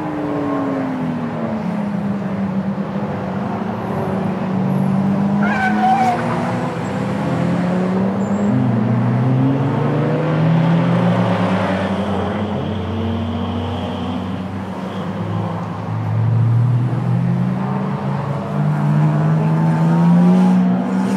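Several budget endurance race cars' engines, overlapping as the cars come through a downhill turn. Their pitches fall as the drivers brake and shift down, then climb again under acceleration. A short tyre squeal sounds about six seconds in.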